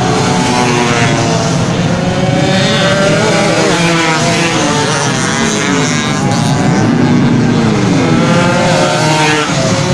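Several 120cc two-stroke underbone race motorcycles running at racing speed past the start/finish line, their high-revving engines overlapping, each pitch sliding up and down as the bikes go by.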